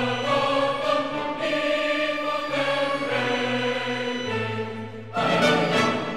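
Slow classical background music with a choir singing long held chords. About five seconds in, the music swells suddenly louder.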